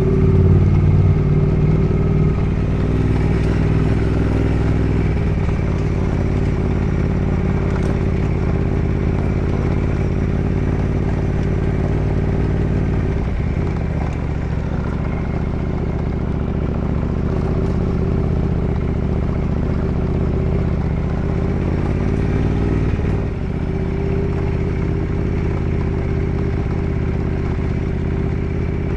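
Ducati Multistrada 1200S's L-twin engine running steadily under way, heard from the bike, with two brief changes in the engine note, about halfway through and again later on.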